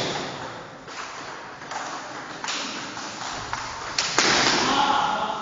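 Table tennis ball being hit back and forth: irregular sharp knocks of the ball on bats and table, each echoing. The loudest hit comes about four seconds in and is followed by a longer noisy stretch.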